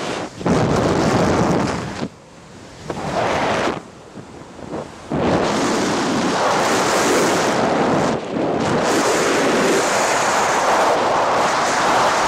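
Loud wind rushing and buffeting over the camera's microphone, in uneven gusts with quieter stretches in the first few seconds and a brief lull about eight seconds in.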